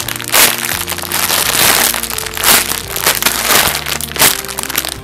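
Clear plastic packaging crinkling and crackling in quick, dense bursts as a bread-shaped squishy toy sealed inside it is squeezed and handled, with background music underneath.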